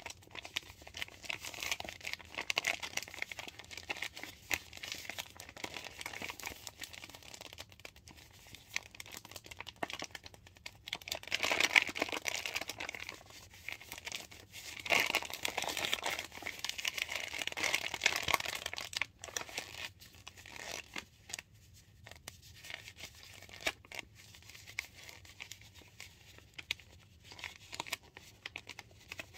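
Crinkling of a paper bag of cornstarch as it is squeezed and shaken to pour the powder out, loudest in stretches near the middle and quieter toward the end.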